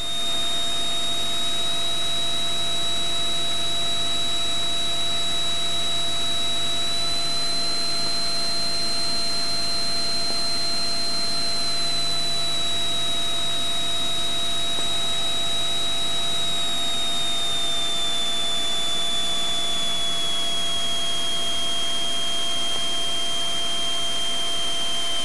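Cabin noise of a Cessna T182T Skylane in flight: its turbocharged Lycoming six-cylinder engine and propeller running steadily, heard as an even noise with a thin high whine on top that drifts slightly lower over the second half.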